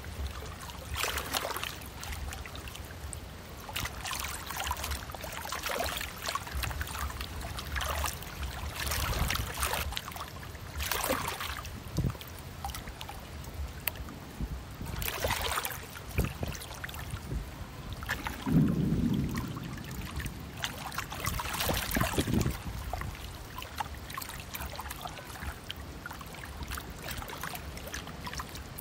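Steady low rumble of a passing container ship, with water from its wake washing and splashing in irregular surges.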